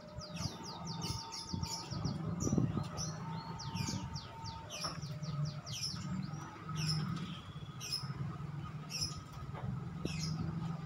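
Small birds chirping over and over in quick falling notes, above a low steady hum from the slowly approaching train.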